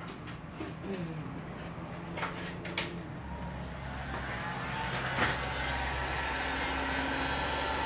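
Handheld hot-air blower switched on after a couple of clicks and running steadily with a rushing, humming noise that grows louder over the first few seconds. It is heating a phone's glued-on glass back cover to soften the adhesive.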